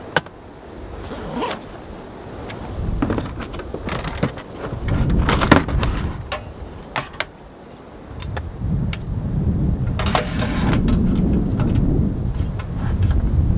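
Strong wind gusting in surges of deep rumble, with scattered sharp clicks and knocks over it.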